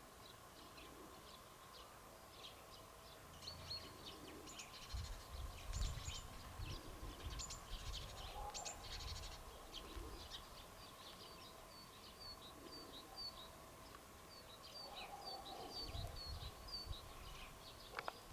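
A flock of sparrows chirping, many short chirps overlapping. From about halfway there is a regular run of single chirps, about two a second. Low rumbles come about a third of the way in and again near the end.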